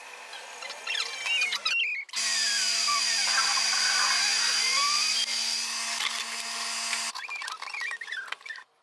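Small machine motors whirring, their pitch gliding up and down as they speed up and slow down. A louder, steady whir runs from about two seconds in to about seven seconds in.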